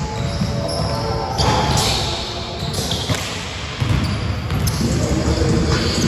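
Basketball bouncing and players' footsteps on a hardwood gym court during a pickup game.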